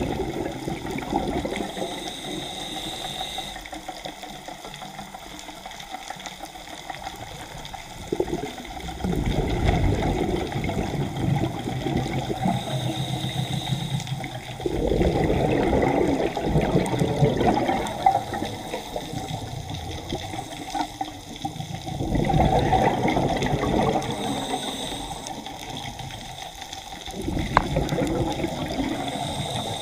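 Scuba regulator exhaust bubbles rushing and bubbling underwater, heard through the camera housing: a diver's breaths out, in several long bursts about every six seconds, with a faint hiss of breathing in between.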